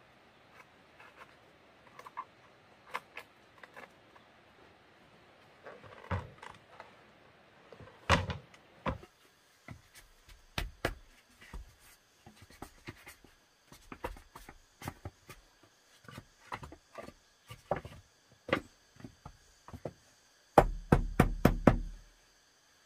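Wooden planks being set and knocked into place: scattered hollow thuds and clacks of board on board and on wood, then a quick run of about six heavy knocks near the end.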